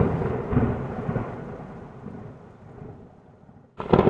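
Heavy rain pouring on a street, with a low rumbling that fades away over about three seconds. The sound drops out for a moment near the end, then the rain comes back in loudly.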